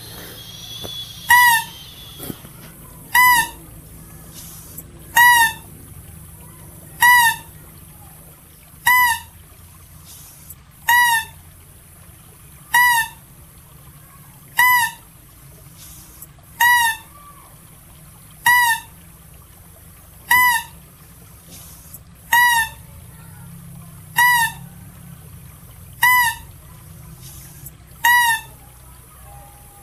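Calls presented as the Philippine mouse deer's (Balabac chevrotain): one short, high cry with a strong pitch, repeated the same way about every two seconds, some fifteen times.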